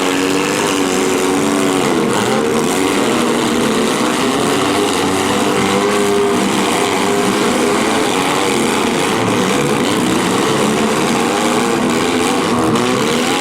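Several compact-car engines running at once in a demolition derby, revving and easing off so that their pitches keep rising and falling over one another.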